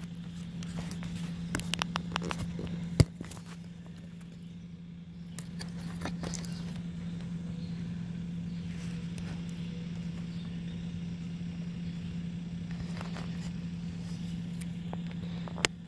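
Cat 308 mini excavator's diesel engine running steadily under work, heard from a distance. A few sharp knocks cut through it, the loudest about three seconds in and another near the end.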